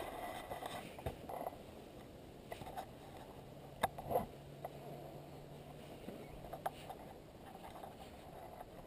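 Faint, muffled dirt bike riding noise: a low, steady engine hum with a few scattered knocks and rattles.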